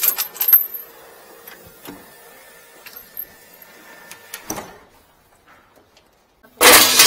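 Metal clicks and knocks as the latches and fittings of a drain-jetting truck's equipment compartments are handled, with a faint steady hum beneath. Near the end comes a loud, dense metallic clatter.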